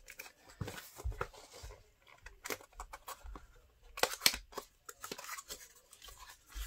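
Thin cardboard box handled and opened by hand: irregular short scrapes and rustles of the card as its end flap is worked open, with a louder cluster about four seconds in.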